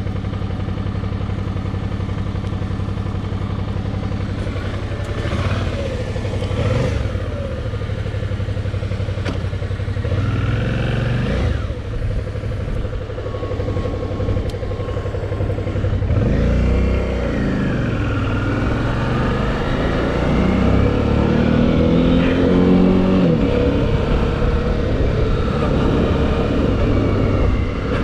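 2009 Suzuki DL650 V-Strom's V-twin engine running: a steady idle for the first dozen seconds, then the pitch rises and falls several times in the second half as the engine is revved or pulls away.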